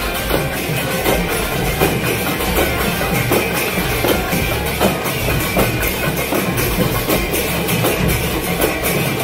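Devotional procession band playing drums and hand cymbals, a dense, continuous clatter of percussion.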